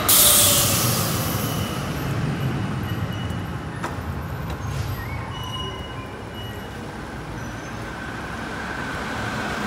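Articulated street tram rolling away along its rails, loudest right at the start, its rumble fading over the first several seconds into steady street noise.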